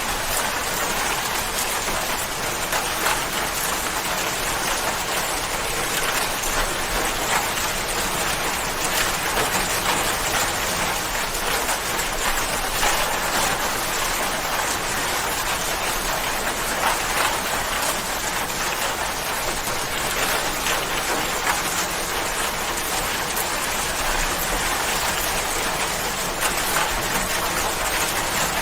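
Steady rain falling and pattering on a surface, an even hiss with many small drop sounds.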